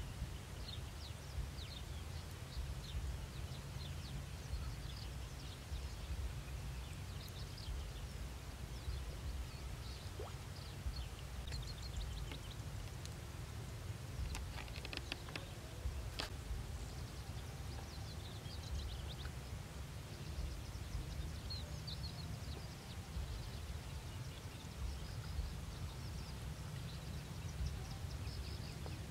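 Open-air field ambience: a steady low rumble with scattered high bird chirps throughout, and a few sharp clicks around the middle.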